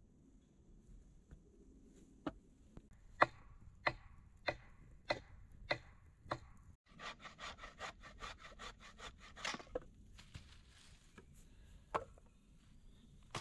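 Wood striking wood: about seven hard knocks, evenly spaced a little over half a second apart, as a log is worked. Then a campfire crackles for a few seconds, and a single wooden knock comes near the end.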